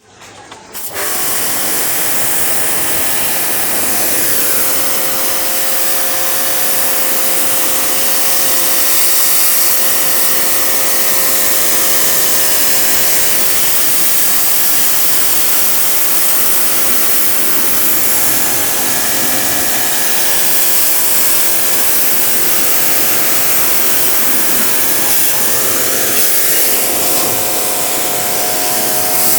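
Jet pressure-washer pump running steadily and spraying water in a loud hiss over a motor hum, cleaning a window air conditioner. It starts about a second in.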